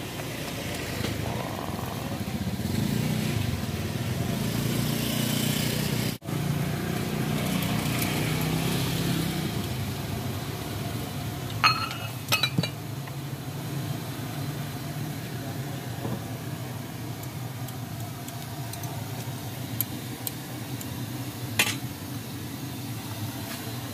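A motor vehicle's engine running close by, building up over the first few seconds and fading away after about ten seconds. A few sharp clinks of bowls and utensils come about halfway through and again near the end.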